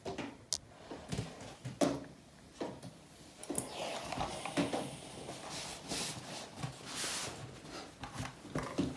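Clothes iron being worked over fabric on an ironing board: irregular knocks and scrapes, with a couple of stretches of hiss partway through.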